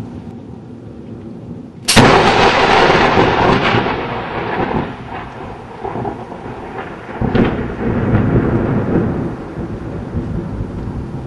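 Close thunder: a sudden sharp crack about two seconds in, then a long rolling rumble that slowly fades and swells again about seven seconds in.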